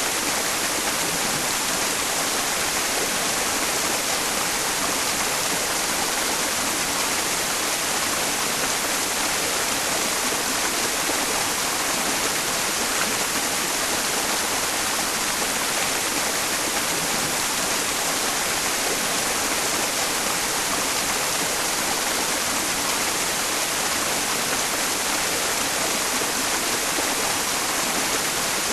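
Mountain stream running, blended with white noise into an even, unbroken hiss that is strongest in the highs.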